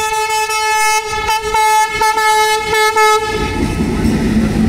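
Indian Railways diesel locomotive sounding its horn in one long steady note, with sharp clicks from its wheels over the rail joints. The horn stops about three seconds in, and the engine and wheels rumble on as the locomotive passes close by.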